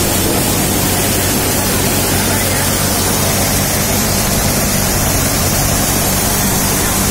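MM Punni multi-crop thresher running while threshing chickpeas: a loud, steady rushing of the spinning drum and blower over an even low hum.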